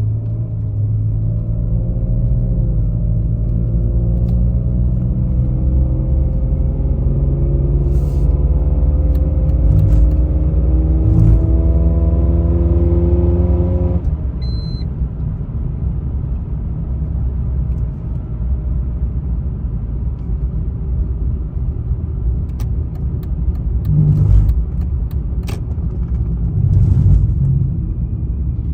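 Car engine running under load, its pitch climbing slowly for about fourteen seconds, then an abrupt change to a steady low rumble with a few light knocks.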